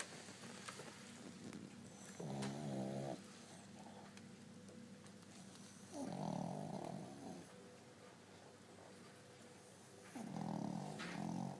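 Snoring: three long snores about four seconds apart, each lasting a little over a second.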